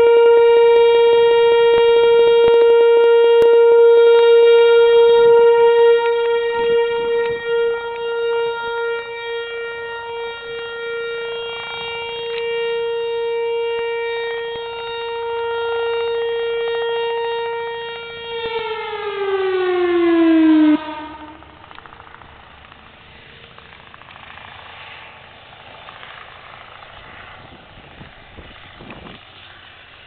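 Outdoor tornado warning siren sounding a single steady tone for its weekly test, swelling and fading in loudness. About eighteen seconds in it winds down with a falling pitch and stops.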